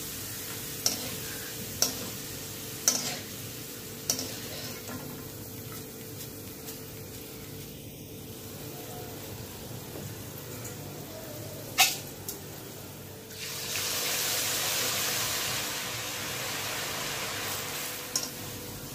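Grated potato shreds deep-frying in hot oil in an iron kadai, a steady sizzle, with a handful of sharp metal clinks as the wire skimmer knocks against the pan. About 13 seconds in the sizzle swells much louder for about four seconds, then eases back.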